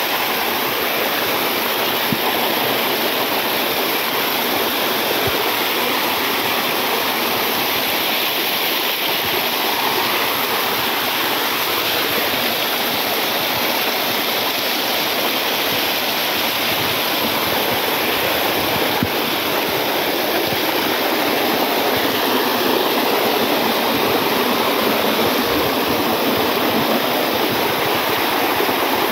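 Water of a small jungle waterfall and stream cascading over rocks: a steady, loud rush.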